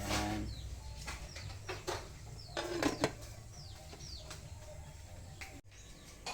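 Small birds chirping in short, falling notes several times, with a few light knocks and clinks, the loudest about three seconds in.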